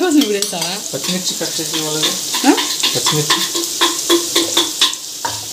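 Chopped onions and whole spices frying in hot oil in a non-stick kadai, a steady sizzle with frequent crackles as they are stirred.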